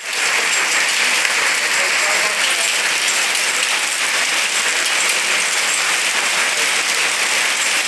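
Heavy hail falling: a dense, steady clatter of many hailstones striking surfaces at once.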